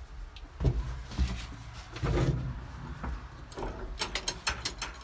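Thumps and knocks from handling inside a tractor cab, then a quick run of about ten sharp clicks near the end.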